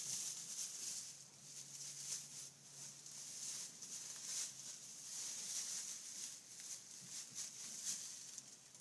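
Faint rustling and crackling of straw bedding as newborn lambs move about on it, with many small crackles.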